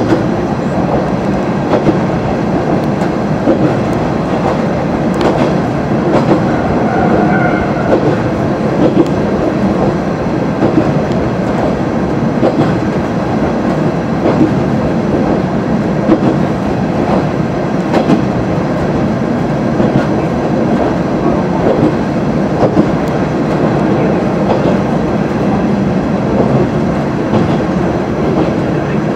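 A Kanto Railway KiHa 350 diesel railcar running along the line, heard from inside its cab: steady engine and running noise, with wheels clicking over rail joints now and then. A brief tone sounds about seven seconds in.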